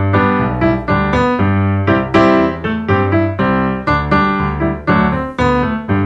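Bouncy piano or keyboard introduction to a children's song, a steady run of quick notes.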